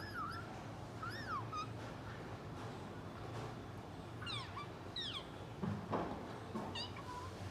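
Pet parrot giving short chirps and whistles that swoop up and down in pitch, one or two at a time every second or so, over a steady low hum.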